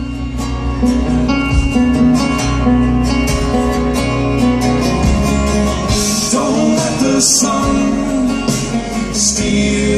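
Folk band playing live through the PA in an instrumental passage between verses, led by strummed acoustic guitar and picked banjo.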